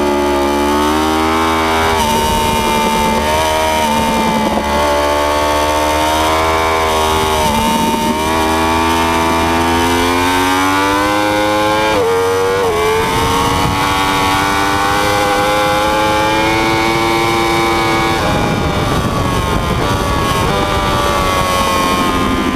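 Yamaha R1 (RN32) crossplane inline-four engine under hard acceleration, its note climbing steadily in pitch and dropping back at each upshift, several times over, then easing off and falling near the end. Steady wind rush over the fairing runs underneath.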